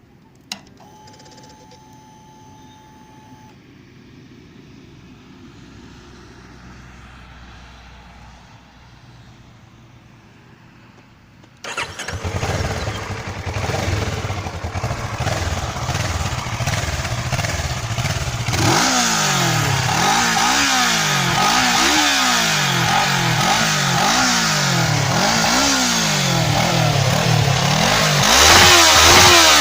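Kawasaki ER-6n parallel-twin engine on its stock exhaust: after a long quiet stretch with one click, it starts suddenly about twelve seconds in and idles, then from about nineteen seconds the throttle is blipped over and over, the revs rising and falling about once a second, loudest near the end.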